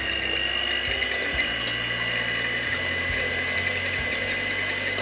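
Electric hand mixer running at a steady speed, its beaters whisking eggs in a bowl, with a steady high motor whine.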